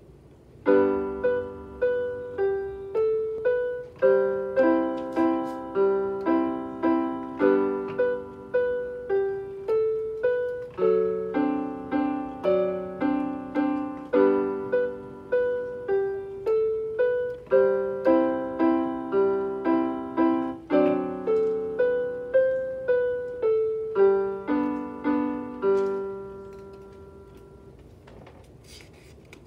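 Portable electronic keyboard played with a piano voice: a simple piece of notes and chords in an even rhythm, each note dying away. The playing starts about a second in and stops a few seconds before the end, the last notes fading out.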